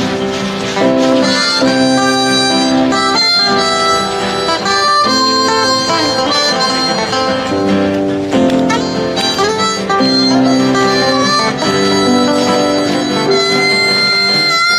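A live band playing an instrumental passage: a melody instrument holds sustained notes over guitar accompaniment, with no singing.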